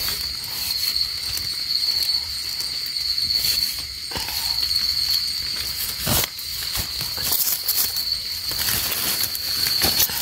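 Steady high-pitched insect call, with scattered crackles and taps as a hand rustles through twigs, leaf litter and soil to pick mushrooms. The sharpest tap comes about six seconds in, and a few more cluster near the end.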